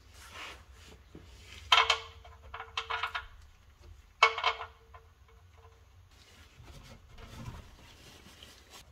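Hand work under a car at the oil filter and drain plug area: two sharp metallic clinks, each leaving a short ringing tone, with a few softer knocks between.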